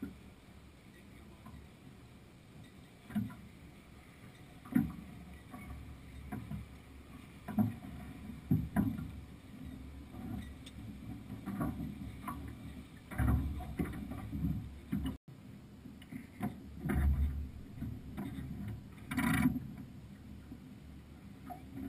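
On-board sounds of a small sailing yacht under way in light wind: irregular knocks and clunks from the boat and its deck gear, with a few low rumbles.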